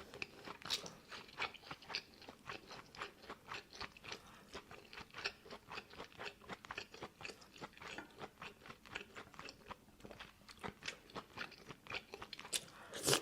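A person chewing crunchy food close to the microphone: a steady run of small crunches, several a second, with a louder crunch near the end.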